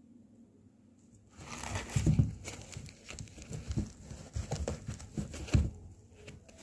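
Hands handling a Campus knit-mesh running shoe: irregular rustling and scraping of fabric and laces with soft thumps, starting about a second and a half in.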